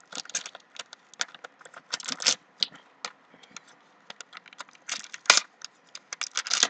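Small hard-plastic toy blind basket being handled and prised open by hand: irregular plastic clicks and crinkles, with one sharper click about five seconds in.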